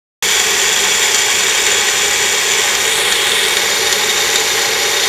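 Magic Bullet blender motor running with a steady whir, blending a smoothie of frozen fruit, milk and crushed ice; it stops abruptly near the end.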